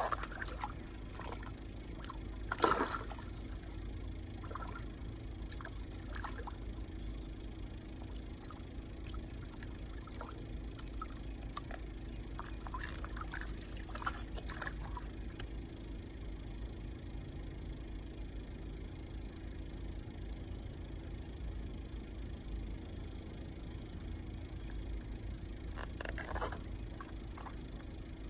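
Shallow lake water splashing and trickling at the shoreline as a peacock bass is released, with a sharper splash about three seconds in and smaller ones around the middle and near the end, over a steady low background hum.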